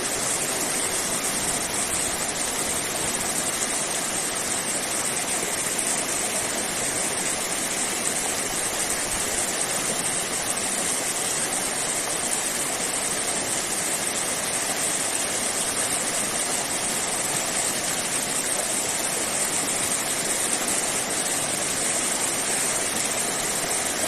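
River water rushing steadily, an even hiss-and-roar that holds without change.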